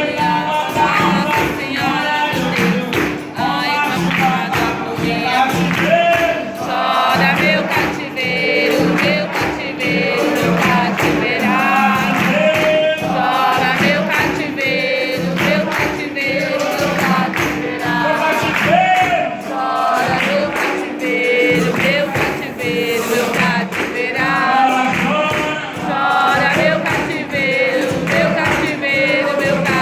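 Capoeira roda music: a group singing together over a steady percussion rhythm that includes a pandeiro.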